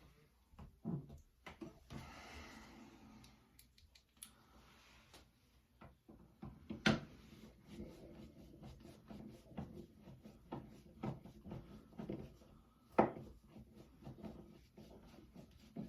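Faint hand work on a wall light switch: a flathead screwdriver and the switch parts make scattered small clicks, scrapes and rubbing, with two sharper knocks about seven and thirteen seconds in.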